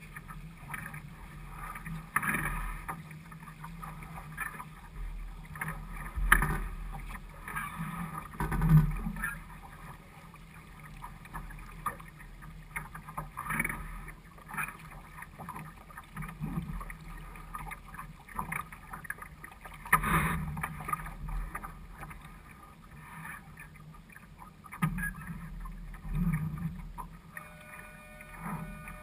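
Small waves slapping and splashing against the bow of a small sailboat moving through choppy water, in irregular bursts every second or two over a steady rush of water along the hull.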